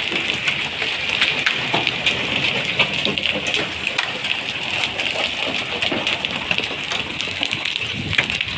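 Hail falling with rain in a hailstorm: a steady hiss with many small, sharp ticks of hailstones striking the road and ground.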